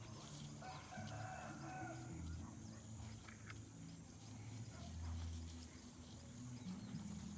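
A rooster crowing once, faintly, in a single held call lasting over a second, starting about half a second in.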